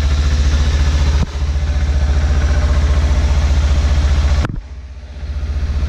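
Kawasaki Ninja sport bike's engine idling steadily with an even low pulse; the sound drops and goes muffled for about a second, four and a half seconds in.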